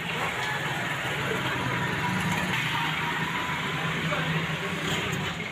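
A vehicle engine running steadily, with street noise.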